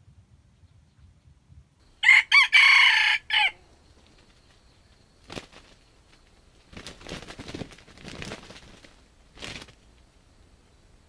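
Red junglefowl rooster crowing once, a short clipped crow of about a second and a half that starts with a few broken notes. It is followed by a few faint bursts of rustling in dry leaf litter.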